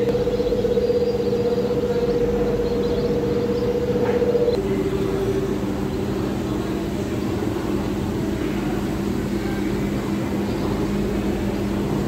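Steady mechanical hum of an engine or motor running, with a low droning note. Its pitch steps down a little about four and a half seconds in.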